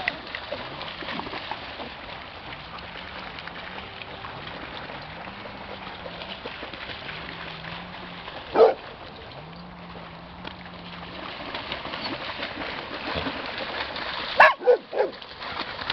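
Dogs barking during outdoor play: one short bark about halfway through and a quick run of barks near the end, over a steady hiss of wind and water.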